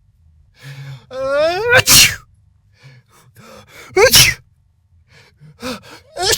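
A person sneezing three times, each a rising drawn-in 'ah' that breaks into a sharp 'choo', about two seconds apart.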